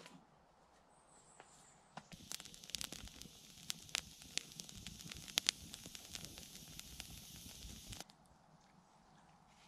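Small campfire of dry sticks in a stone ring burning: a steady hiss with many sharp crackles and pops, starting about two seconds in and stopping suddenly near the end.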